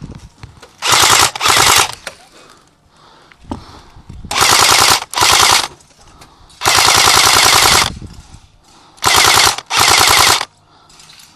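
Airsoft AK-47 replica firing full-auto in seven short bursts of rapid shots, most of them in quick pairs, with the longest burst lasting about a second midway.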